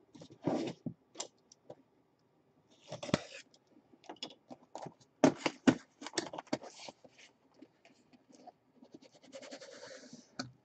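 Hands handling and opening a cardboard collectibles box: scattered knocks, taps and scrapes against the box, then a longer sliding, papery rustle near the end as the lid comes off over tissue paper.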